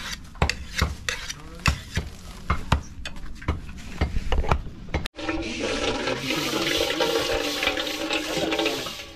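Irregular knocks and scrapes of a curved blade cutting raw pork against a wooden block. About five seconds in, this gives way to steady splashing and swishing of hands in water in a large metal pot.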